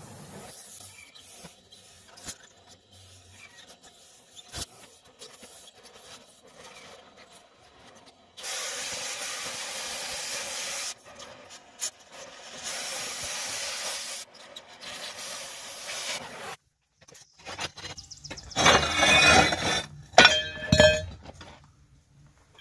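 Oxy-propane cutting torch blowing its cutting-oxygen jet through steel beam, a steady hiss in three spells of a few seconds each that cut off suddenly. Near the end there is a louder burst of metallic clanking with ringing.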